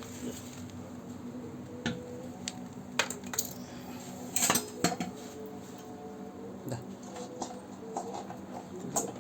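Scattered clinks and knocks of hard metal parts being handled and set down, the loudest a couple of close knocks about halfway through, over a steady low hum.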